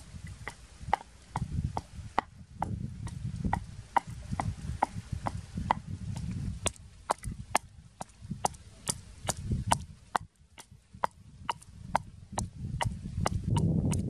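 Wooden pestle pounding chilies in a wooden mortar to make chili sauce: a steady rhythm of sharp wooden knocks over dull thuds, about two to three strokes a second, with a short pause about ten seconds in.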